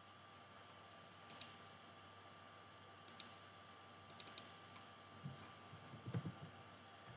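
Computer mouse clicking, several short clicks mostly in quick pairs spread over the seconds, with a few soft low bumps near the end.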